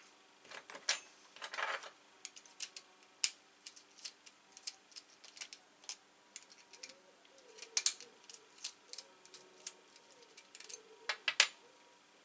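Irregular light metallic clicks and taps of tweezers and small pins and springs being handled against a brass Euro-cylinder lock body during assembly.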